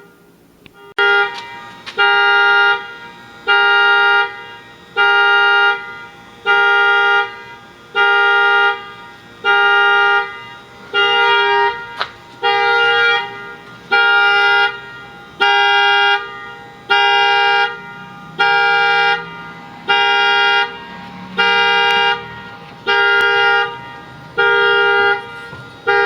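Car alarm sounding the car's horn in loud, evenly repeated blasts, each just under a second long, about one every one and a half seconds. Fainter pulses at the start give way to full-volume honks about a second in.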